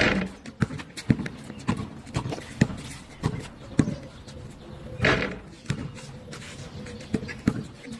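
Irregular sharp knocks, roughly two a second, with a brief noisier burst about five seconds in.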